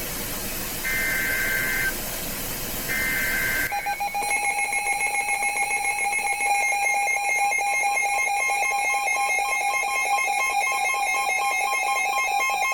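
Emergency Alert System broadcast over weather radio. First come the last two of the three short warbling data bursts of the SAME header, about a second each and a second apart. About four seconds in, the steady, shrill two-tone attention signal starts, announcing a severe thunderstorm warning.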